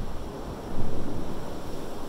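Pacific surf churning through a rocky channel. A wave surges in and breaks against the rocks a little under a second in, then washes back and slowly fades.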